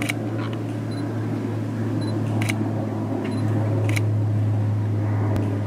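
A few sharp camera shutter clicks over a steady low hum.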